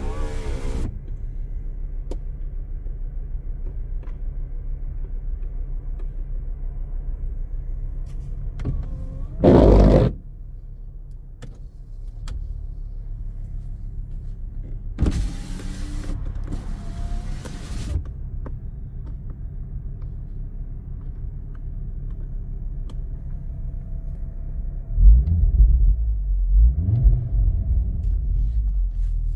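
Ford Focus ST's turbocharged 2.5-litre inline five-cylinder engine idling steadily. There is a short loud blip about ten seconds in, a stretch of hiss a few seconds later, and several quick revs rising and falling near the end.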